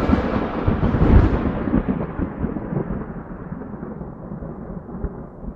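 Thunder rumbling, loudest about a second in and then slowly dying away.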